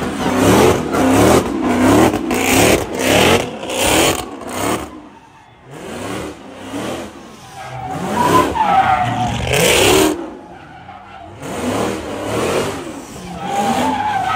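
Car engine revving hard in repeated surges while the tyres squeal and skid. The surges are densest in the first five seconds, drop away briefly, then come back in two more swells.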